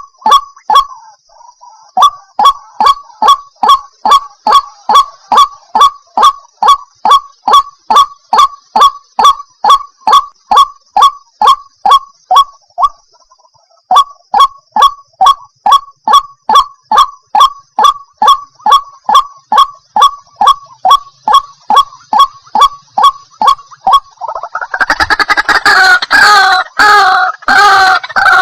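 White-breasted waterhen (ruak-ruak) calling: a fast, even run of sharp repeated notes, about three a second, breaking off briefly twice. Near the end it gives way to a denser, overlapping jumble of calls.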